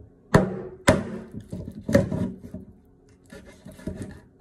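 Kitchen knife chopping into a raw chicken on a wooden cutting board: three sharp knocks on the board in the first two seconds, then quieter scraping and cutting near the end.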